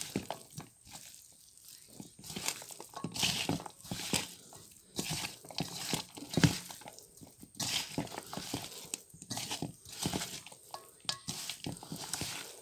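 Hand mixing raw pork pieces with sliced onion, green chillies and spices in a stainless steel bowl: wet squishing and crunching as the meat is squeezed and turned, in uneven bursts about once a second.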